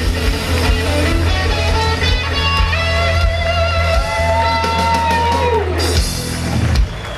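Live rock band (electric guitars, bass, drums and keyboards) playing the closing bars of a song, with a held note sliding down in pitch before the music stops near the end.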